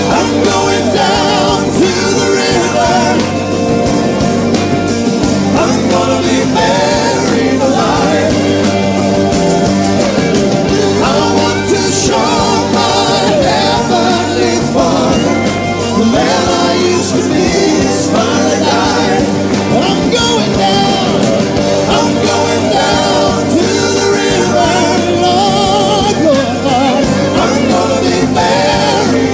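Music: a gospel-style song, with a voice singing over a steady band backing.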